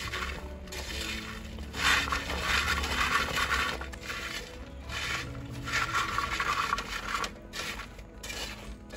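Young jackfruit cubes being tossed and mixed by hand in a clay pot: the firm pieces clatter and scrape against each other and the pot wall in bursts a second or two long.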